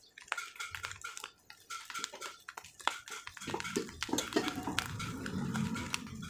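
Scattered crackles and pops of bopis frying in oil in an aluminium pan. A rough, low animal sound joins over the second half.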